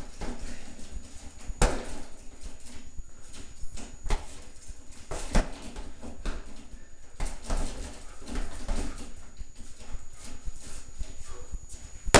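Punches landing on a hanging heavy bag in irregular flurries, sharp thuds a second or two apart, with hard breathing between strikes.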